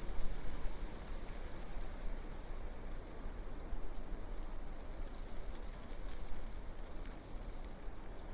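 Leaves rustling in the wind: a dense, steady patter of small crackles over a low wind rumble, wavering in strength.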